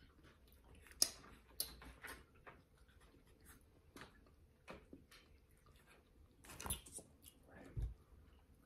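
People eating fries and a burger: faint chewing and mouth sounds, broken by scattered short smacks and clicks about a second apart.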